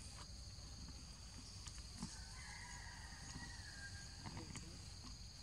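Forest ambience: a steady high insect drone with light clicks and rustling in the leaf litter. A faint drawn-out animal call comes in the middle, and short low calls come near the end.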